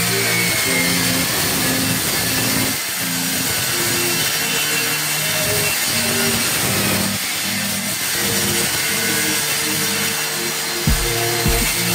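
Background music: a melody of short held notes stepping from pitch to pitch over a steady, bright upper layer.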